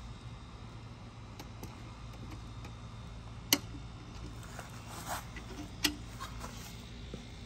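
Scattered sharp clicks and knocks, two of them much louder than the rest and about two seconds apart, over a steady low background rumble.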